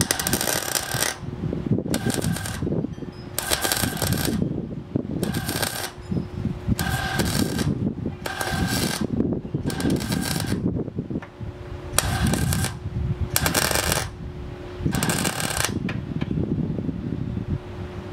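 MIG welding arc crackling in about ten short bursts, each under a second, as stitch welds are laid on engine-bay sheet metal. A steady hum runs underneath.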